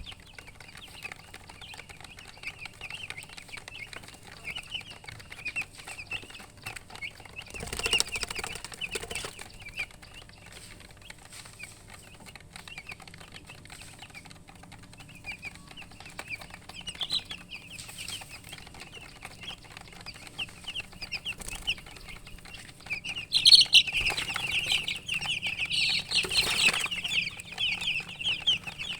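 Newly hatched chicks peeping continuously in many short, high-pitched chirps. About eight seconds in, and again near the end, brief bursts of rustling come through, and the peeping grows loudest near the end.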